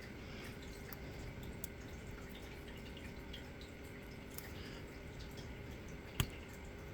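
Faint, scattered small metallic clicks of a pick working the rotating discs inside an ASSA D12 disc-detainer lock during picking, with one sharper click about six seconds in.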